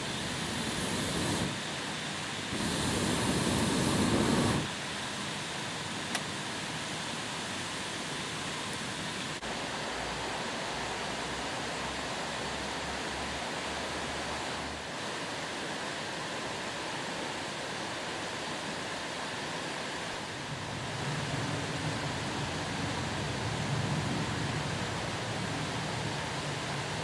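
Steady rushing outdoor noise with no distinct events. A louder low rumble comes in for about two seconds near the start, and again from about twenty seconds in.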